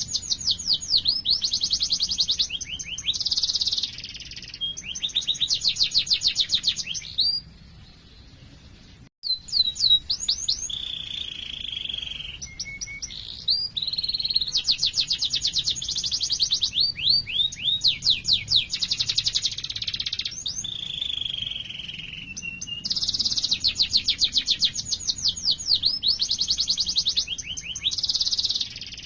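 Domestic canary singing a long rolling song of very fast trills, broken by a few lower drawn-out notes. The song pauses briefly about seven to nine seconds in.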